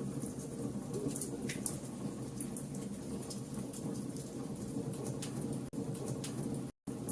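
Fire crackling: a steady low rush of burning with frequent sharp, irregular crackles and pops. The sound drops out completely for a moment near the end.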